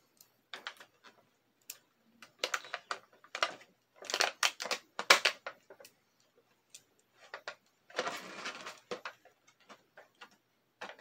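Hard plastic parts of a Bakugan toy clicking and clacking as hands work it, in irregular bunches of short sharp clicks, with a rougher rustle lasting about a second near the end.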